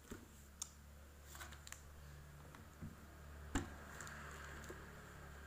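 Scattered light clicks and knocks as a child's carrying case is handled and its lid opened, the loudest knock about three and a half seconds in, over a steady low hum.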